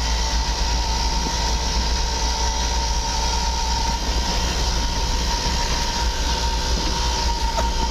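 Steady road and engine noise of a moving vehicle, with a constant whine.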